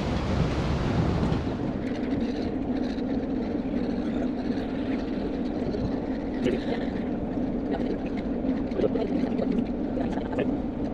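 A rushing noise for the first second and a half, then the steady low drone of the Spirit of Tasmania car ferry's engines under way, heard from the open deck, with gulls calling faintly now and then.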